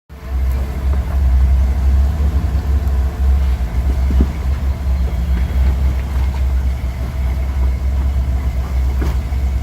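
A vehicle engine running with a steady, deep, low rumble.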